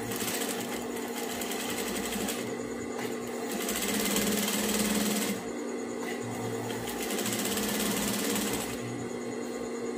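Industrial single-needle lockstitch sewing machine stitching rapidly in three short runs with brief stops between, sewing a line of top stitching; the middle run is the loudest. A steady hum lies under it.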